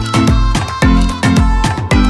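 Background music with a steady beat and strong bass.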